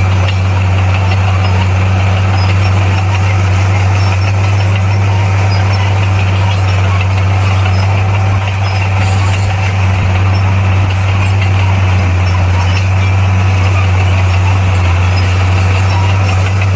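Bulldozer's diesel engine running steadily at a constant pitch, loud and unchanging.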